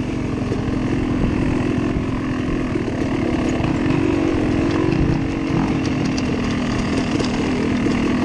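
Dirt bike engine running close by, its revs rising and falling with the throttle.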